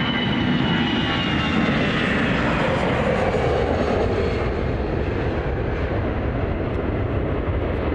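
Airbus A319 jet airliner's twin turbofan engines at takeoff thrust as it lifts off and climbs away: a loud, steady rumble with a high whine that slowly falls in pitch over the first couple of seconds.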